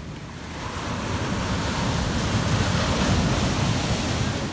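Surf breaking and washing up a sand beach: a rush of water that swells about a second in and eases off near the end.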